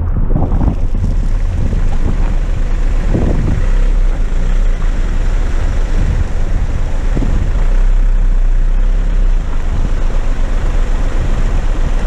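Small car (Audi A2) driving along a wet, stony lane, heard from a camera mounted low on the outside of the car: tyre noise on the wet road and heavy wind rumble on the microphone, with a few thumps.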